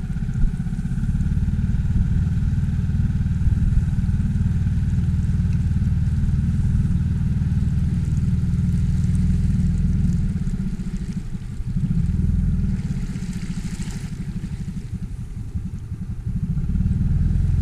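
Small outboard motor on an inflatable boat running steadily under way, its level easing and picking up again a couple of times.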